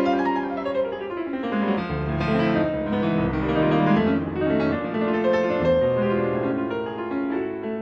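Background piano music, slow sustained notes and chords.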